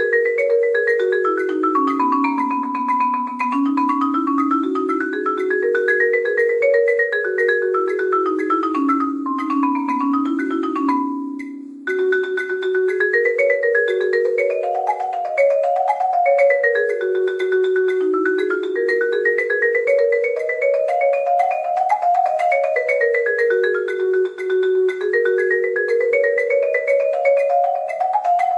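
Yamaha marimba played with mallets: a steady stream of quick notes climbing and descending in stepwise runs, with a brief break about eleven seconds in.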